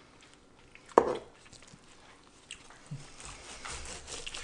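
Quiet knife work: a long slicing knife drawn through a tender smoked brisket on a plastic cutting board, with faint scrapes and clicks. One short, sharp sound stands out about a second in.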